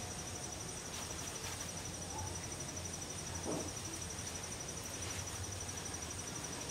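Insects trilling steadily in a high-pitched, rapidly pulsing drone, with one faint short sound about three and a half seconds in.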